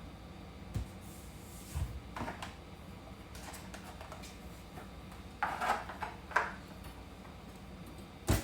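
Kitchen handling sounds while cat food is being prepared: a few separate knocks and clatters of a drawer and dishes, with a sharp click near the end.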